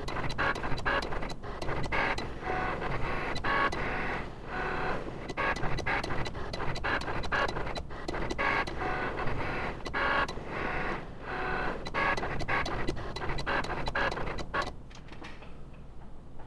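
Cricut Explore cutting machine cutting a gasket out of thin gasket sheet: its motors whine in short spurts of changing pitch as the blade carriage and mat shuttle back and forth, with many small clicks. It stops about fifteen seconds in as the cut finishes.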